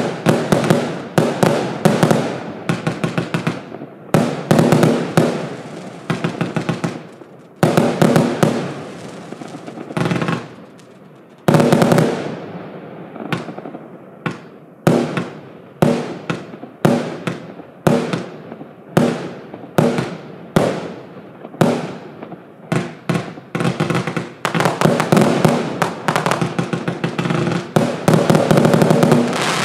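Evolution Fireworks Double Whammy, an 80-shot compound firework cake, firing: rapid runs of launches and bursts, several shots a second, broken by short lulls.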